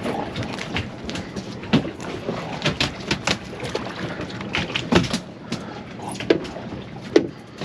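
Scattered sharp clicks and taps from fishing tackle being handled, hook, leader and reel, over a steady wash of water and wind around the boat.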